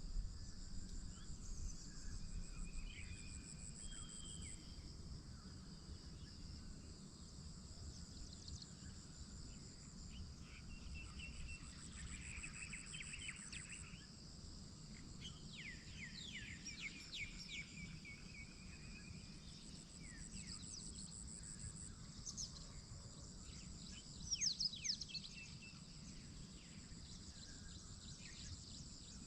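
Outdoor morning ambience: insects chirring steadily in a high pitch with pulsing trills, while birds give short quick chirps in bursts, most of them in the second half. A low, even rumble sits underneath.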